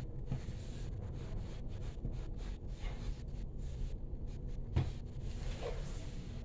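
Faint scratching of a coloured pencil stroking over drawing paper, coming and going, under a steady low background rumble and hum, with one sharp click about five seconds in.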